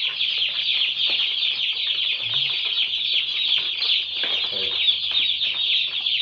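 A box of day-old Cobb 500 broiler chicks peeping continuously: a dense chorus of many short, high-pitched cheeps overlapping without a break.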